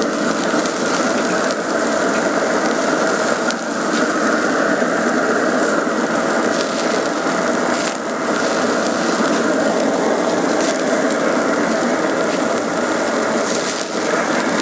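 Beef burger patties sizzling steadily on a cast iron grill grate over a pellet grill running at about 720 degrees, with a few faint light clicks.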